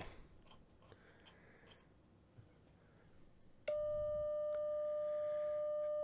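CW sidetone from a Yaesu FTDX101MP transceiver: a steady, mid-pitched beep that switches on abruptly a little past halfway and holds, the sign of the key being held down to transmit a steady carrier at about 200 watts. Faint handling sounds before it.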